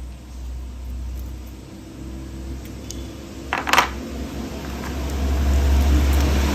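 Plastic toy train parts being handled, with a sharp clattering clack about three and a half seconds in, over a low rumble that grows louder near the end.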